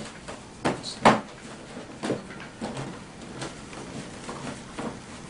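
Hard plastic scooter body panels knocking and clicking as they are handled while a screw is lined up with a hand screwdriver. Two sharper knocks come about a second in, then lighter scattered clicks.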